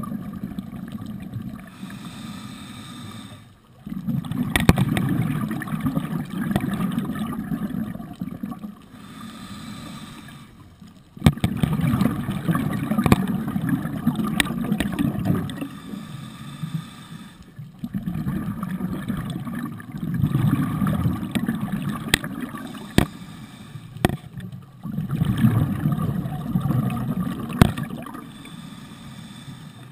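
Scuba diver breathing through a regulator underwater: long bubbling exhalations about every six or seven seconds, with quieter hissing inhalations between them. Scattered sharp clicks run through it.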